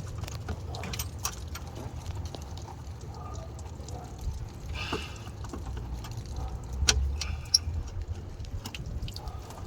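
Light metal clinks and knocks of hand tools and engine parts being handled, over a steady low hum. There is a short rasp about five seconds in and a heavier knock around seven seconds in.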